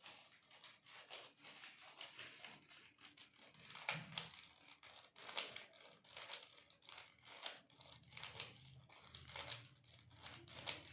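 Faint, irregular plastic clicking and rattling of a Rubik's cube being turned quickly in the hands during a blindfolded solve.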